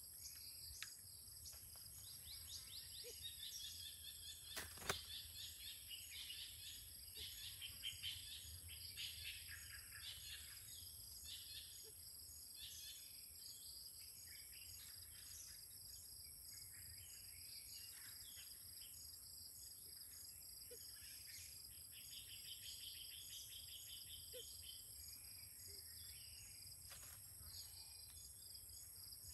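Faint, steady, high-pitched insect drone with bursts of birds' chirping calls over it, and one sharp click about five seconds in.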